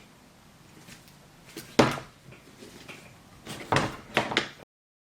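A few sharp knocks and clacks of hard objects being handled: one about two seconds in, then a quick cluster near four seconds. The sound cuts out abruptly just before the end.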